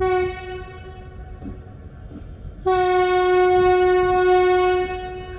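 Train horn sounding: a short blast at the start, then a long steady blast of about two seconds.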